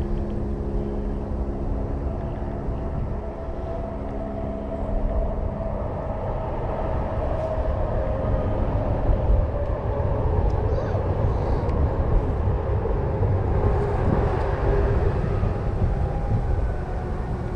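An engine droning at a steady pitch, fading out about six seconds in, over a constant low rumble.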